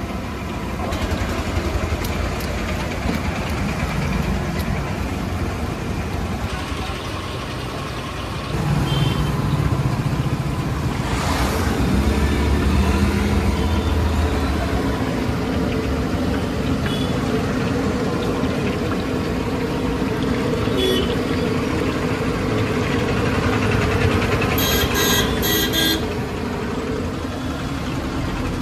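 Roadside traffic: motor vehicles passing with engines running, and a vehicle horn sounding briefly near the end.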